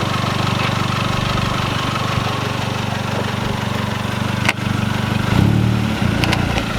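Turbocharged Mazdaspeed Protege5's four-cylinder engine running at low revs through a custom straight-pipe turbo exhaust, a steady low drone that swells briefly about five seconds in. A single sharp click about four and a half seconds in.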